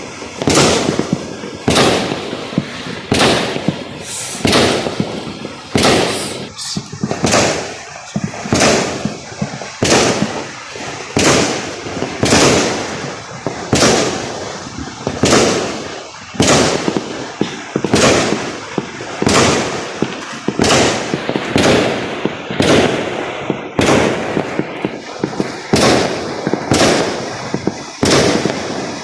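Fireworks going off in a steady, regular series of loud bangs, a little more than one a second, each followed by a short echoing decay.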